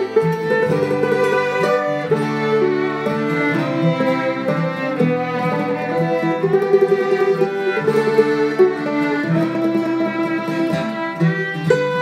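Acoustic string music led by a bowed fiddle, with plucked strings underneath.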